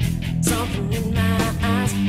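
Background music: a melody line that bends in pitch over steady sustained low notes.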